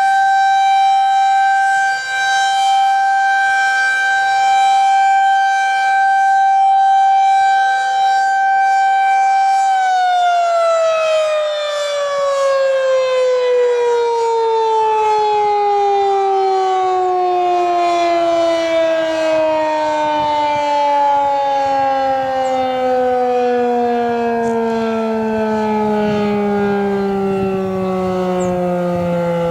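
Federal Signal 2001-SRNB outdoor warning siren sounding a steady tone during its monthly test. About ten seconds in, power cuts and it winds down, its pitch falling slowly and steadily.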